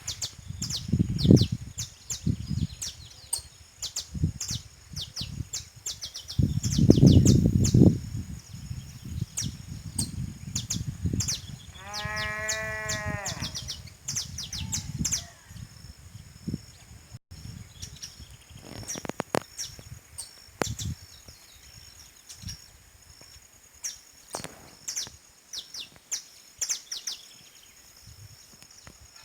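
Birds chirping in quick short notes throughout, with one bleat from a sheep or goat lasting about a second and a half, roughly twelve seconds in. Low rumbles come near the start and again around six to eight seconds in.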